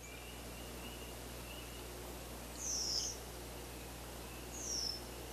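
Two high, thin bird calls, each sliding down in pitch and lasting about half a second, about two seconds apart, over faint repeated chirps from other birds.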